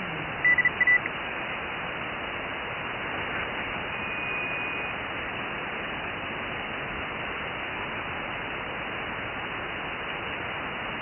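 Kenwood TS-870 transceiver's HF receiver giving steady band hiss on the 40 m band while being tuned between stations. About half a second in comes a quick run of short high beeps, and around four seconds a brief steady whistle from a signal being tuned across.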